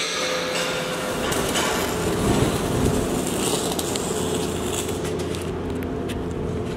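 Steady outdoor background noise with a low hum and a few scattered clicks; the hiss thins out after about five seconds.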